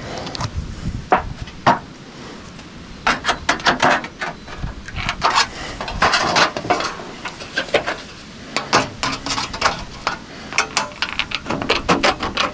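Tin snips cutting a sheet of metal flashing: runs of quick, crisp snips with the sheet rattling as it is worked, pausing briefly near the middle before starting again.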